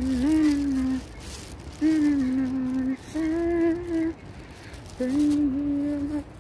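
A person humming a slow tune in held notes of about a second each, with short breaks between them.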